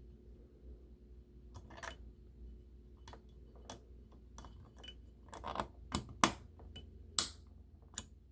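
Small parts of a model locomotive being handled while it is reassembled: irregular light clicks and taps, coming more often and louder in the second half, with two sharp clicks about six and seven seconds in.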